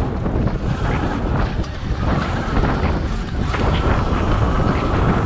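Electric dirt bike riding over a gravel dirt trail: wind buffeting the microphone and tyres rumbling, with scattered small clicks and rattles from the rough ground. A thin steady whine joins in about three and a half seconds in.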